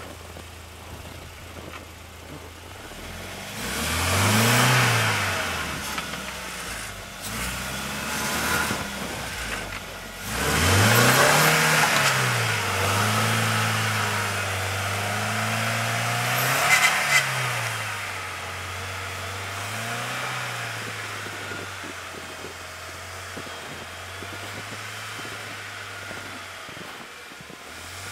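UAZ Patriot SUV engine revving up and down in several surges as it tries to pull out of deep snow, with loud bursts of noise, likely wheels spinning in the snow, during the hardest revs. The engine then settles to a steadier, lower note.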